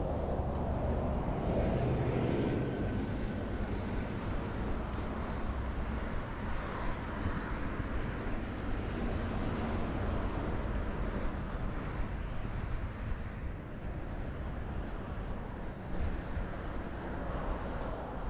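Steady rumble of road traffic heard outdoors, loudest about two seconds in and easing off slightly near the end.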